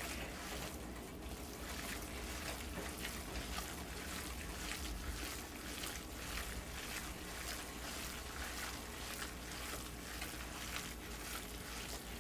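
Raw minced beef being kneaded with melted spiced butter (kibe) in a warm dish for kitfo, giving soft, irregular wet squishing.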